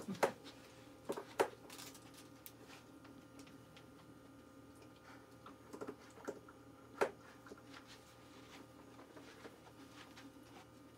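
A handful of sharp clicks and light knocks from an Akita puppy nosing and pawing at tin pails and a plastic bowl during a scent search: a cluster in the first second and a half, a few more around six to seven seconds in, with quieter taps between.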